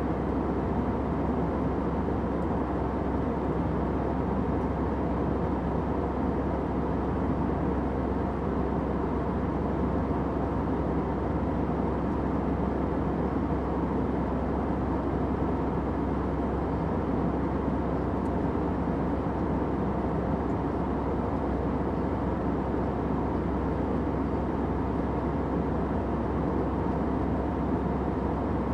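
Steady airplane noise, the kind heard from a cabin in flight: an even, unchanging low rumble and hiss.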